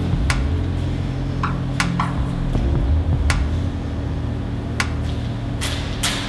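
A low, steady drone of several held tones that shifts to a different set of pitches about two and a half seconds in. Sharp, irregular taps or clicks ring out over it, roughly one every half second to second.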